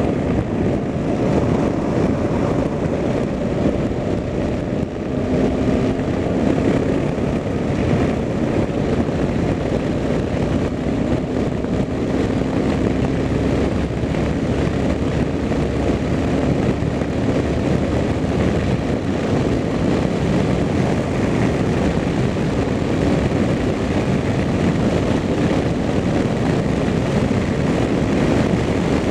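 Motorcycle engine running at a steady cruising speed, its pitch holding nearly level, under a constant rush of wind noise.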